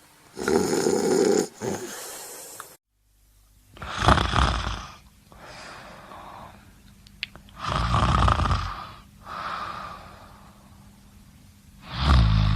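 Snoring: loud rasping in-breaths about every four seconds, each followed by a softer out-breath. The sound drops out briefly about three seconds in.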